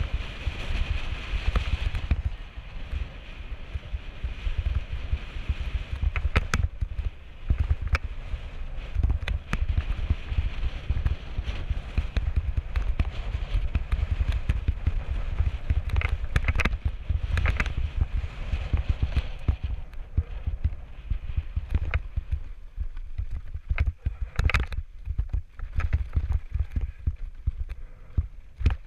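Mountain bike rolling fast down a dry dirt singletrack: steady wind rumble on the microphone with the hiss of tyres on dirt. Many sharp rattles and knocks from the bike, more of them where the trail turns rocky near the end.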